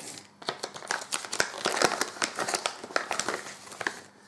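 Packaging of an electronic speed controller crinkling and rustling as it is opened and handled, with a run of irregular small crackles and clicks.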